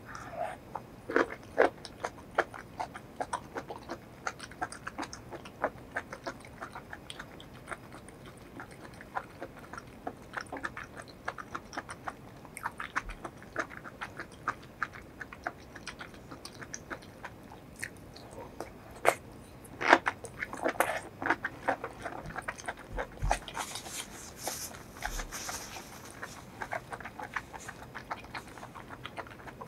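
Close-miked chewing of mushrooms in spicy sauce: many short, irregular mouth clicks and bites, a few louder about a second in and around twenty seconds in. Near the end a tissue rustles as it wipes the mouth.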